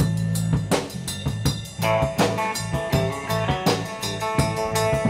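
Live band playing an instrumental passage: electric guitar and bass guitar over a drum kit, with steady snare and bass-drum hits about twice a second.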